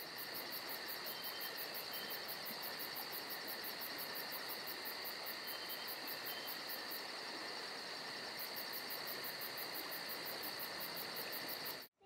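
Insects chirping: a steady high-pitched trill with a faster, even higher pulsing chirp over it that drops out for about a second and a half around the middle, all cutting off abruptly near the end.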